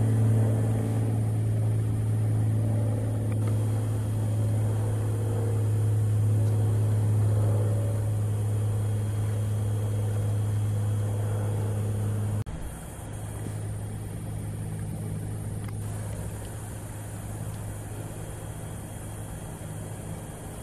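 Steady low machine hum that drops abruptly to a quieter, similar hum about twelve seconds in.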